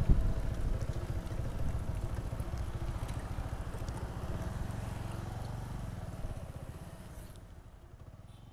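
Bajaj Avenger motorcycle's single-cylinder engine running steadily at low road speed, with a brief thump right at the start. The sound fades out over the last couple of seconds.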